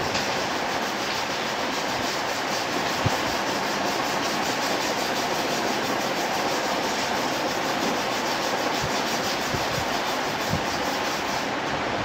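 Steady, rapid scrubbing of a desktop RAM module being cleaned, with a few light knocks.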